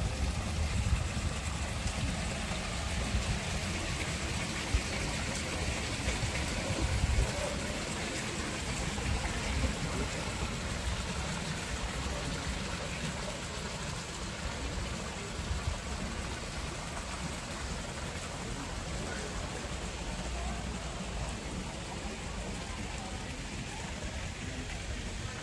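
Steady splashing of water falling from the stone statues' spouts into a bathing pool, with an uneven low rumble underneath.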